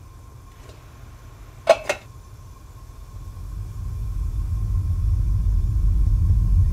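A deep, low rumble swells steadily louder from about three seconds in, a tension-building effect with no visible source in the kitchen. Two sharp clicks come close together a little before it starts.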